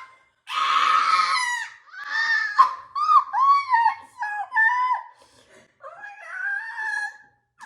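A person's high-pitched whimpering and wailing: a string of short cries that rise and fall in pitch, opening with a rougher wail. It is the reaction to the burn of a very spicy sauce.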